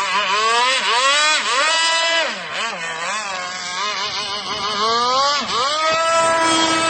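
Small brush-cutter engine on a remote-controlled longtail boat, revved repeatedly with its pitch swooping up and down, then held at high revs for about a second near the end.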